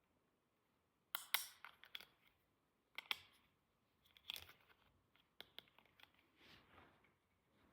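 Small clicks, taps and short rustles of miniature plastic toy pieces and packaging being handled, in loose clusters starting about a second in.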